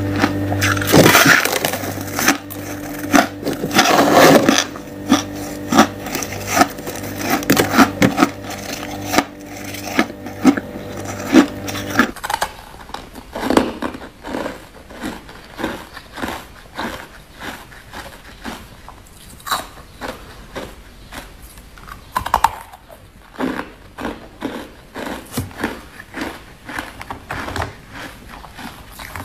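Ice being bitten and chewed, with sharp cracks and crunches at an irregular pace. For the first twelve seconds the crunching of frost-like shaved ice sits over a steady hum, which stops abruptly. After that come bites and chewing of chunks of cloudy white ice.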